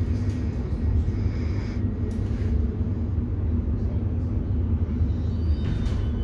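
Steady low rumble inside a Siemens Nexas electric train carriage at a station stop. Near the end, steady high whining tones from the traction equipment set in as the train starts to pull away.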